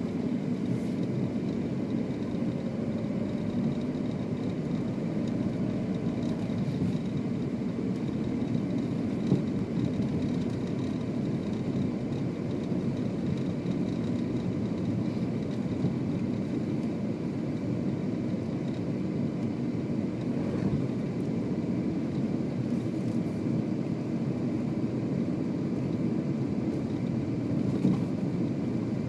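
Car driving on a snow-covered road: a steady low rumble of engine and tyres, with a brief knock about nine seconds in and another near the end.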